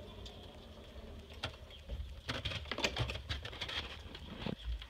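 Goat kids' small hooves stepping on crunchy snow and tapping onto a wooden threshold, a quick flurry of clicks a couple of seconds in. A dull low thump near the end.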